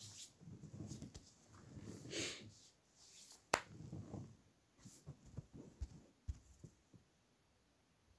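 Faint breathing and small handling noises close to the microphone, with one sharp click about three and a half seconds in and a few light clicks after it.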